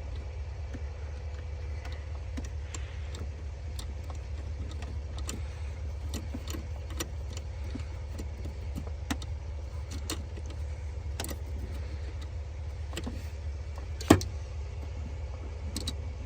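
Scattered light metallic clicks and taps of a hand tool tightening a small connection on a car battery, with one sharper click about fourteen seconds in, over a steady low hum.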